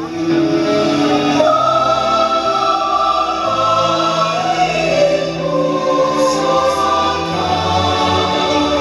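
A group of voices singing together over music, in long held notes that move step by step in pitch.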